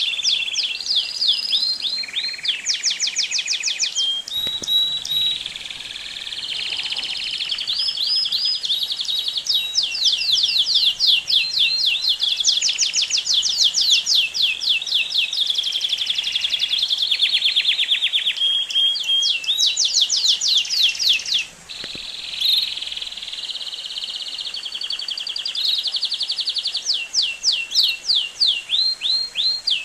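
Domestic canary (Belgian canary) singing a long, continuous song of fast trills and rolling runs of rapidly repeated high notes, with a brief break about two-thirds of the way through.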